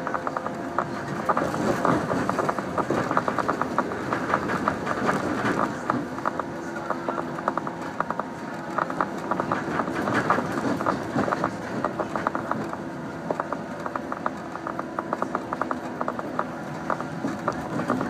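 A JR 115 series electric train running at speed, heard from inside the carriage: a dense, uneven rattle of wheel and body clicks over a steady running hum.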